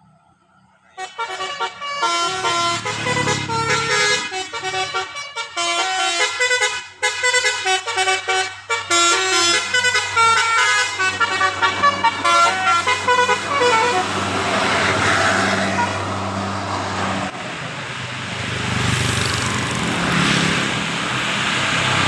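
A bus's 'telolet' musical air horn playing a rapid tune of short, changing notes over the low, steady sound of the diesel engine. About fourteen seconds in, the tune stops and a loud rushing noise takes over.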